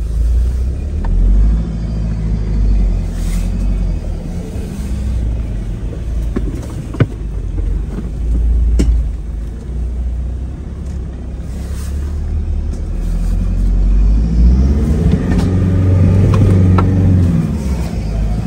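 Off-road vehicle driving on a rough road: a steady low rumble of engine and road noise with a couple of sharp knocks from bumps. Near the end the engine note rises and then falls as it revs up and eases off.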